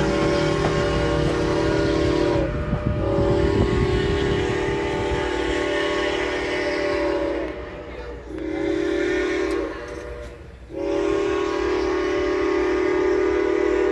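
Steam locomotive whistle sounding a chord of several tones in four blasts, long, long, short, long: the standard warning signal for a grade crossing. A low rolling rumble from the train lies underneath.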